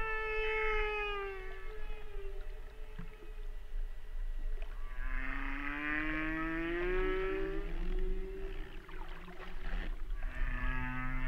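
Whale song: long pitched calls that glide in pitch, one falling and fading out about two seconds in, a longer rising call from about five to eight seconds in, and another beginning near the end, over a steady low hum.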